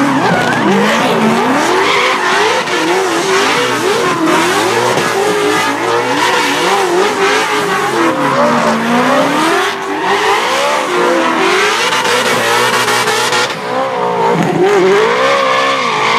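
Ford Mustang drift car engine revving hard, its pitch swinging up and down constantly as the car is held sideways, with tyres squealing under it.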